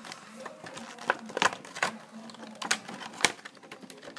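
Handling noise: a handful of sharp, irregular clicks and taps, roughly a second apart, from objects being handled close to the microphone, over a faint steady low hum.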